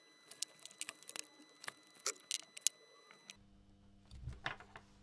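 A run of light clicks and taps from handling small hand tools and a turbo-molecular pump's metal housing on a wooden desk, followed by a soft thump and a click near the end.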